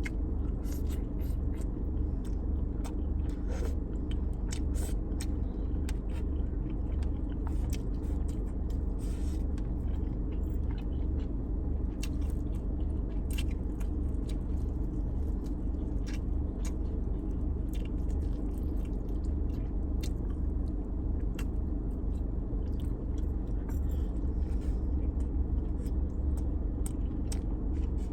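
Close-up chewing and biting of food, with scattered small wet clicks and smacks, over a steady low hum.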